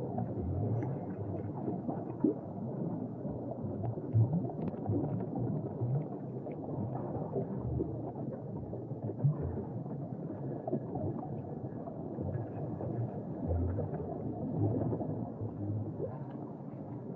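Underwater scuba sound: air bubbles burbling in a steady low wash, with a few louder surges.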